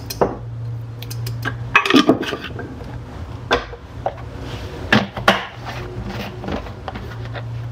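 Ceramic canisters, jars and lids clinking and knocking as they are handled and set down on a counter and tray, a scatter of separate knocks with the loudest around two seconds in and again around five seconds in. A steady low hum runs underneath.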